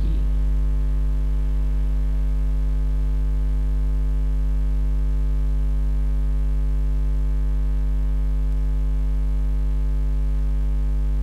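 Steady low electrical mains hum, with no other sound over it.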